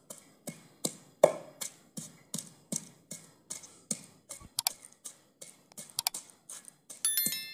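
Wooden pestle pounding chopped onion and garlic in a terracotta bowl: a steady run of dull knocks, about two and a half a second.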